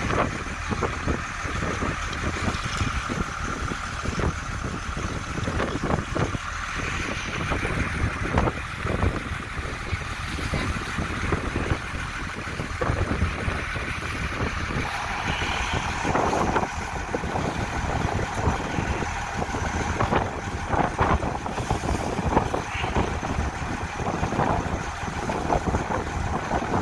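Wind buffeting the microphone over the rush of water along the hull of a sailboat under way: a steady noisy rumble with irregular gusts.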